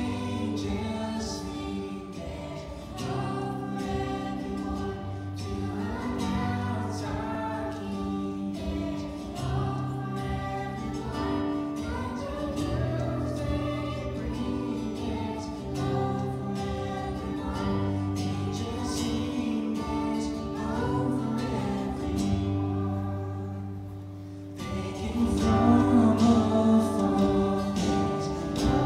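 Children's choir singing a Christmas worship song with live guitar accompaniment over a steady bass line. The music eases off briefly and then comes back louder near the end.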